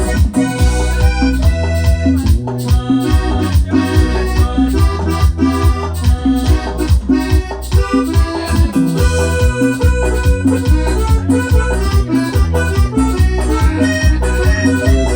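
Instrumental cumbia played on an electronic keyboard: a lead melody over a steady bass and a regular percussion beat.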